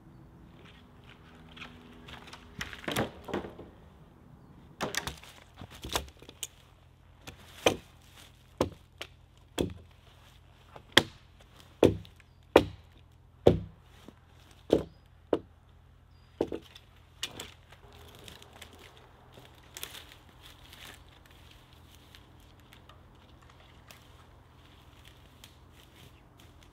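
Small axe chopping a dead branch: about a dozen sharp strokes into the wood, roughly one a second, loudest in the middle of the run. A brief wooden clatter comes before the chopping, and only faint rustling and knocks follow it.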